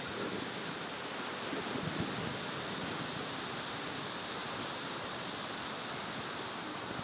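Steady rushing noise of airflow and the electric ducted fans of an E-flite A-10 RC jet in flight, heard from a camera mounted under its wing, so wind buffets the microphone.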